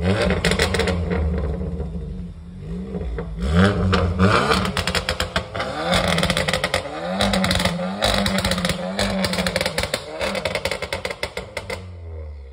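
VW Golf GTI's turbocharged four-cylinder engine blipped through a custom straight-through exhaust with braided pipes, revs rising and falling several times with pops and crackles between the blips. The sound dies down near the end.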